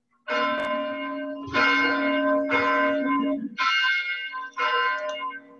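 Church bell rung about once a second, five strokes, each ringing on into the next, calling to worship.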